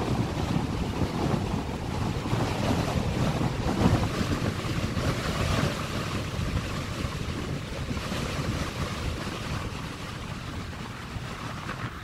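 Strong gusty wind buffeting the phone's microphone with a low rumble, over the steady rush of a jet airliner's engines as it comes in to land and touches down.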